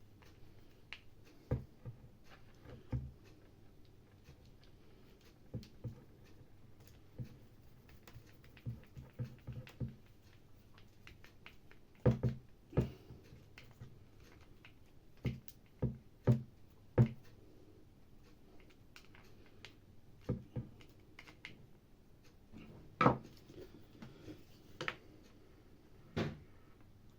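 Irregular clicks and light knocks of hands fitting small plastic and metal parts into a hammer drill's housing during reassembly, with the loudest knocks about twelve, seventeen and twenty-three seconds in.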